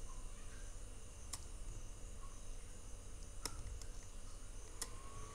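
Four faint, sharp computer mouse clicks, spaced one to two seconds apart, over a low steady hum and hiss of room tone.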